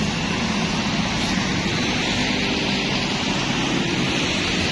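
Diesel engine of a bare Hino RK bus chassis running steadily as the chassis rolls slowly along, under a steady hiss from the wet road and rain.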